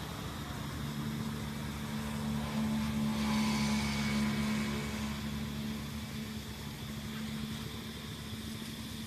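A vehicle engine hum that swells to its loudest a few seconds in and then fades away, like a vehicle passing by.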